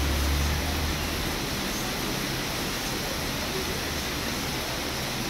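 Steady hiss of heavy rain, with a low rumble during the first second.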